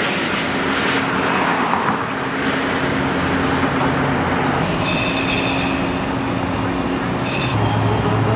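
Steady engine drone with constant low hums and a brief high whine about five seconds in.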